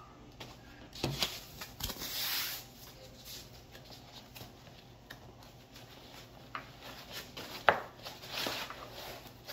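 Hands handling a padded nylon rifle case: fabric rustling and rubbing as a flat panel is lifted and pushed into a compartment. There are a few knocks, and one sharp click about three-quarters of the way through.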